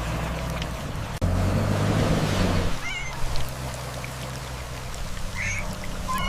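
An excavator's engine drone over rushing floodwater, the drone shifting abruptly about a second in. Kittens mew briefly a couple of times.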